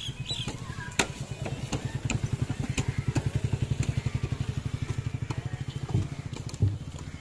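Single-cylinder 8 hp diesel water pumpset engine chugging at a steady rapid beat of about nine strokes a second, loudest in the middle. There is a sharp click about a second in and two thumps near the end.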